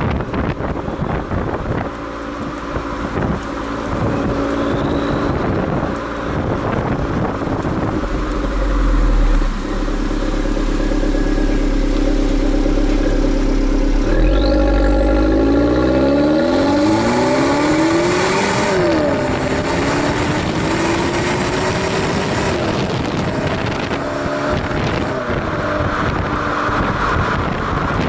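2014 Fiat 500L's 1.4-litre turbocharged four-cylinder exhaust note through its stock muffler, heard at the tailpipe while driving. About halfway through the engine pitch rises steeply under acceleration, drops once and climbs again, with wind rushing over the microphone throughout.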